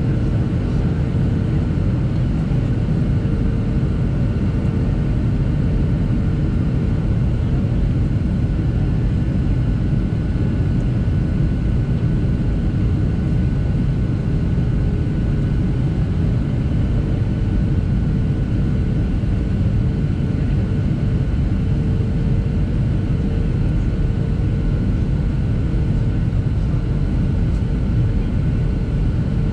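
Cabin noise inside a Boeing 737-700 on descent: its CFM56-7B turbofan engines and the airflow over the fuselage make a steady low rumble, with a faint steady hum above it.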